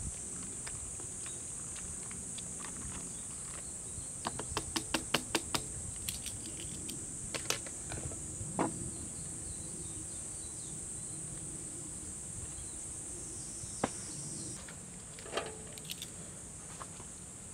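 Steady high-pitched insect drone from summer insects, with a quick run of sharp clicks and clinks about four to six seconds in and a few more later from cooking utensils on metal cookware.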